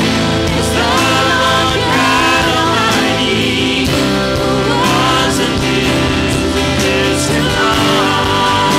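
A woman singing a worship song into a microphone, backed by instruments, her voice holding and gliding between long notes.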